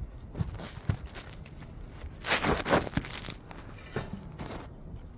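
Close rustling and crinkling with a few light knocks, loudest for about a second a little past the middle: handling noise of the phone rubbing against plastic sheeting.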